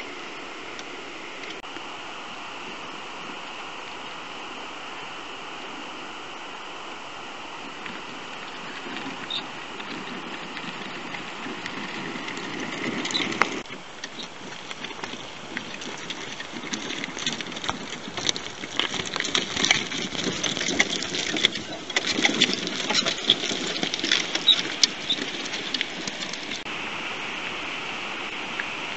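A steady hiss, then from about fourteen seconds in a louder, irregular crunching and crackling of loose stones under the tyres of a Tramper off-road mobility scooter driving over a rough stony track. The crackling stops abruptly near the end and the steady hiss returns.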